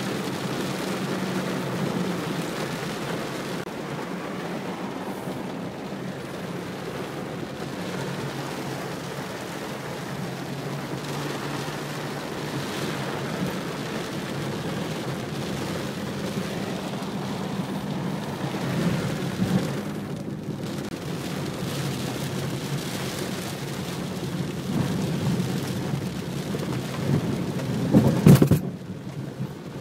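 Thunderstorm: steady heavy rain with rumbles of thunder over a steady low hum. Near the end comes a louder burst that cuts off suddenly.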